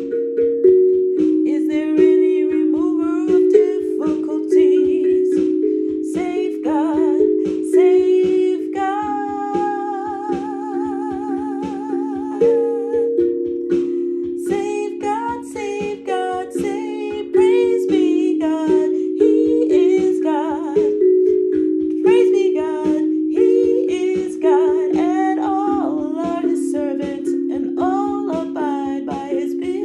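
Steel tongue drum tuned to 432 Hz, struck with mallets in a slow, free-flowing melody of overlapping ringing notes. A woman's wordless singing rides over it, with a long held note wavering in vibrato about a third of the way in.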